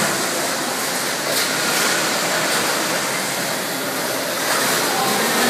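Steady din of a busy motorcycle assembly line: a dense, even noise of machinery and conveyor work with no single sound standing out.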